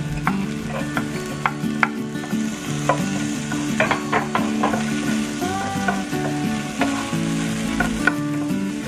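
Onion and minced garlic sizzling in oil in a nonstick frying pan, the sizzle strengthening about two seconds in. A wooden spoon stirs them, clicking and scraping against the pan several times.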